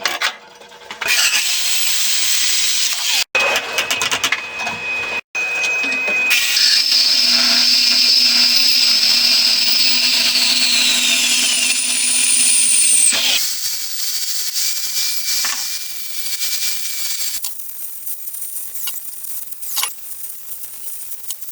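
Angle grinder grinding and beveling steel, in several short segments. About eleven seconds in, its high whine falls and then cuts off. The last few seconds are quieter.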